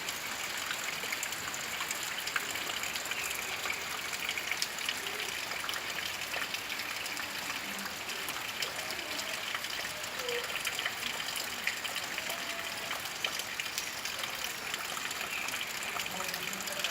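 Steady rain falling, an even hiss of countless small drop ticks, with water running and trickling.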